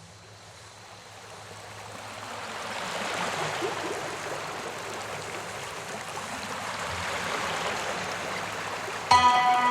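Rushing water of a waterfall, a steady roar of noise that fades in gradually over the first few seconds and then holds. Near the end, music with sustained tones starts suddenly over it.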